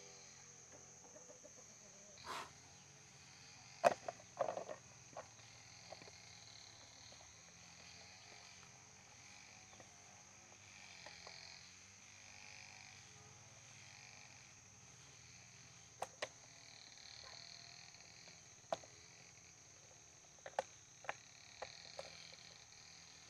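Scattered light clicks and knocks from an electric fan's motor and plastic rear housing being handled, the loudest about four seconds in, with a screwdriver clicking against the housing screws near the end, over a faint steady background.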